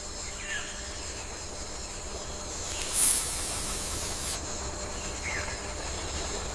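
Rainforest ambience: a steady hiss under a constant high-pitched drone, with two short falling chirps and a louder burst of hiss about three seconds in.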